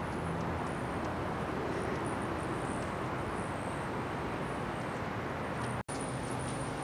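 Steady outdoor background noise, an even rumble and hiss with a faint low hum. It drops out for an instant near the end, where one shot cuts to the next.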